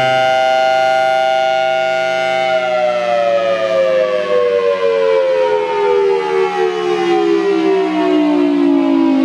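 Outdoor warning siren sounding a steady multi-tone chord, then winding down about two and a half seconds in, its pitch falling steadily as the rotor coasts down.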